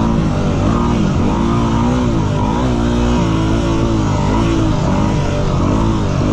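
Yamaha WR250R's single-cylinder four-stroke engine, heard from on the bike, revving up and down as the throttle is worked through turns. The pitch rises and falls every second or so.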